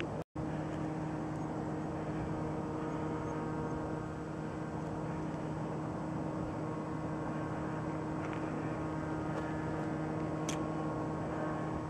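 Steady, unchanging low droning hum of a distant engine over an even hiss, cut by a brief dropout to silence just after the start.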